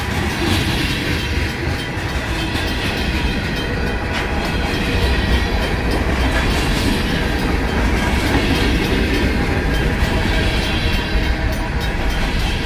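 Freight train cars, covered hoppers and tank cars, rolling steadily past: a continuous low rumble with clickety-clack of wheels over the rail. The crossing's RACO mechanical bell is ringing over it.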